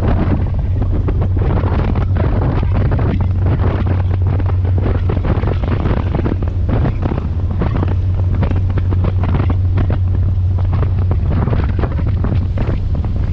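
Strong wind buffeting the microphone on the deck of a moving passenger ferry, over a steady low drone from the boat's engines.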